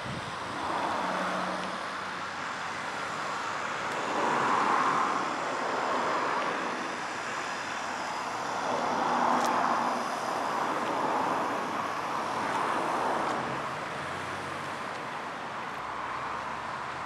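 Road traffic passing: several vehicles swell and fade in turn over a steady background hum, about five passes in all.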